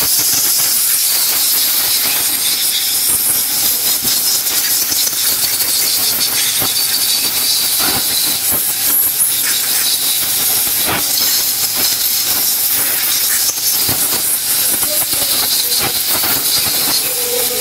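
Compressed-air blow gun blasting air in a steady, loud hiss, drying the degreaser-washed pump block of a pressure washer.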